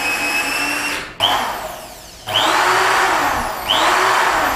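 Electric power tool motor running at speed with a high whine. It is switched off about a second in and started again three times, each start a quick rising whine as it spins up. The motor runs down in between.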